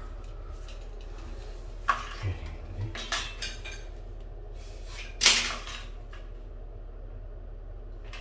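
Scattered clicks and knocks of hand tools and wood trim pieces being handled on a tiled floor, with one louder knock a little after five seconds in.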